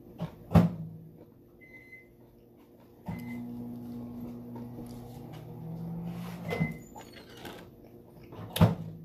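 Household sounds: a sharp knock, short electronic beeps, and an appliance humming steadily for about three and a half seconds, stopping with another beep. A second loud knock comes near the end.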